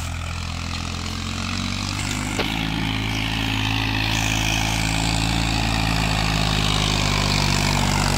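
Sonalika DI 35 tractor's diesel engine running steadily under load, pulling a fully opened 14-disc harrow in second gear of the high range. It grows gradually louder as the tractor comes closer.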